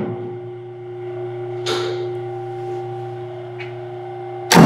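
Three-phase induction motor running with a steady electrical hum. About four and a half seconds in there is a loud contactor clack as the PLC alternation switches the supply over to the second motor. There is also a fainter knock about two seconds in.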